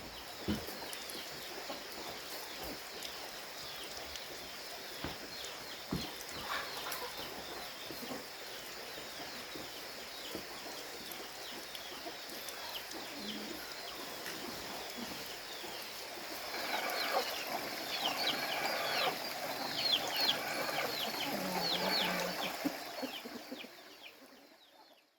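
Chickens clucking and peeping, with louder calls in the last third, over a steady high insect drone. The sound fades out near the end.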